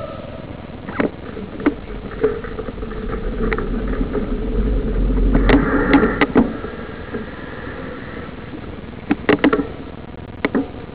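A motor vehicle passing, swelling to its loudest about six seconds in and fading by about eight, with scattered sharp clicks and knocks.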